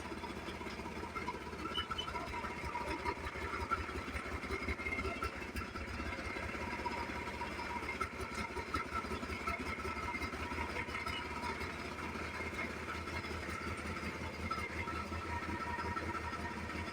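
Boxer 700HDX mini skid steer's engine running steadily at idle, a low fast pulse under a steady high whine.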